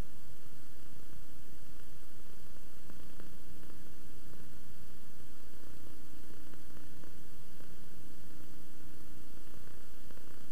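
Steady static hiss with a low electrical hum and nothing else: background noise of an analog videotape transfer.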